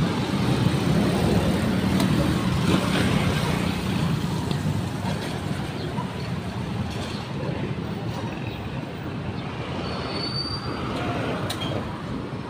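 Street traffic: a car's engine and tyres close by, loudest in the first few seconds, then a steady background of passing vehicles. A brief high squeak sounds about ten seconds in.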